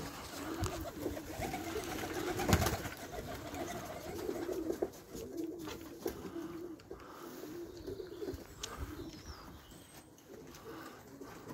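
Domestic pigeons cooing in a low, repeated warble, with one sharp thump about two and a half seconds in.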